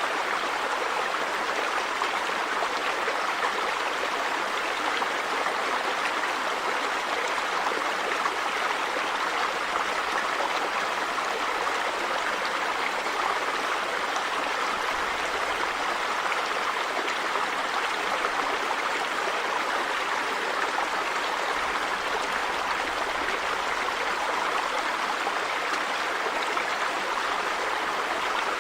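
A river or stream of running water flowing steadily over rocks, a continuous rushing hiss with no change throughout.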